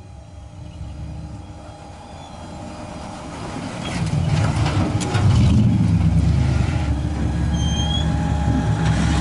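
Side-by-side UTV engine running at low throttle as it crawls down a steep rock ledge, growing much louder from about four seconds in.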